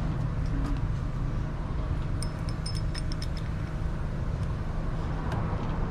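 Steady low background rumble, with a short run of light metallic clinks a little past the middle, typical of a bicycle chain being handled.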